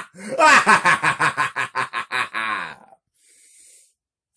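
A person's voice in a fast run of short, repeated syllables that stops about three seconds in, followed by a faint breath.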